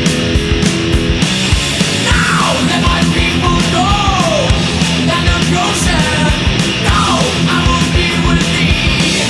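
Loud heavy-metal-style music with a fast pounding beat and steady low notes, with several bending, sliding high notes in the middle.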